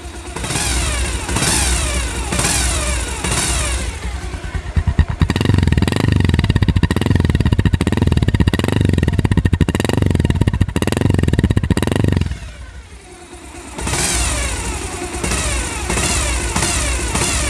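Old-model Bajaj Pulsar's single-cylinder engine and exhaust running and being revved in repeated throttle blips, dropping back briefly near the end before revving again, with a high whining 'shin-shin' note that comes from the balancer gear set three teeth advanced.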